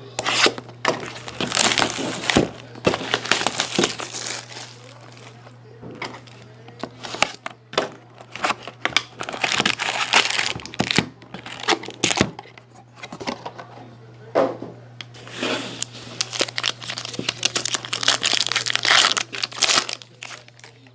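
Plastic wrap and foil trading-card pack wrappers crinkling and tearing in irregular bursts as a box of hockey card packs is opened and the packs are handled and ripped open, over a steady low hum.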